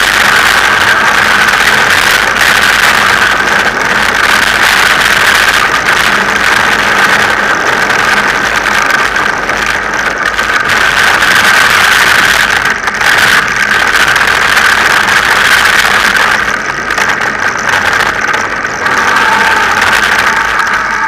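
Steady rolling noise and rattle of a mountain bike speeding down a dirt and gravel forest track, heard from a camera mounted on the bike.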